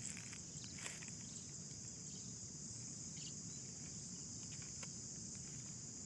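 Steady, high-pitched chirring of insects, crickets most likely among them, from the rice paddy, with a few faint rustles.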